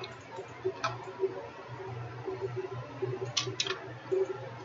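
Computer mouse clicking: a single sharp click about a second in and two quick clicks near the end, over a low steady hum.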